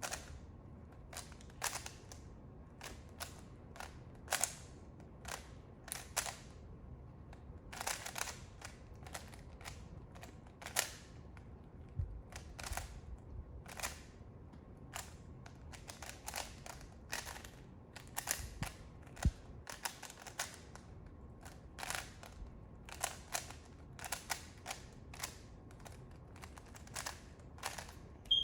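Plastic Rubik's cube layers being turned fast during a speed solve: sharp, irregular clacks, often several in quick succession, with short pauses between runs of turns.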